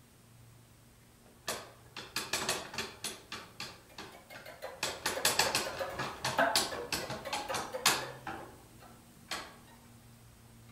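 A run of sharp clicks and taps, several a second, played on toy instruments as part of an experimental piece. The taps start about a second and a half in, grow thickest in the middle and stop, with one last tap near the end, over a faint low hum.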